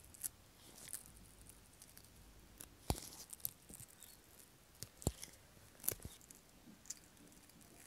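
Metal tweezers working at small plastic model car seats, peeling away a thin clear film. There are scattered soft clicks and crinkles, the sharpest about three seconds and five seconds in.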